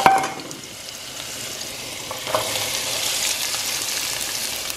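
Crushed garlic sizzling in hot oil in a nonstick pot, with a sharp clink at the start and a lighter one about two seconds in. The sizzle grows louder around halfway as diced red onion is tipped into the oil.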